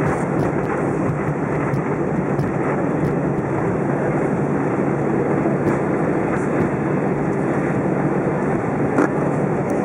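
Steady cabin noise of an Airbus A320 taxiing on the ground after landing, its engines running at low power, with one light tick near the end.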